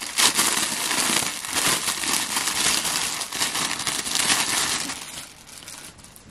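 Clear plastic packaging bag crinkling and rustling as it is worked open by hand and a garment is pulled out, dying away about five seconds in.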